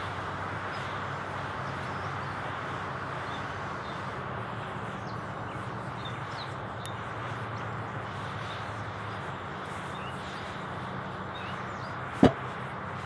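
A steady hiss with faint birds chirping now and then, and one sharp knock about twelve seconds in.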